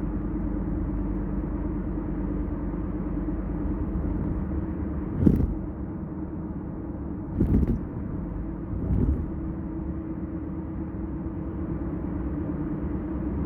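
Kia K5 cruising on a highway, heard from inside the cabin: a steady drone of road and engine noise. Three short thumps break it about five, seven and a half and nine seconds in, the first the loudest.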